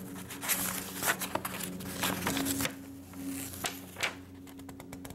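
Large folded sheet of printed paper being unfolded and handled, rustling and crinkling in irregular bursts, over a low steady hum.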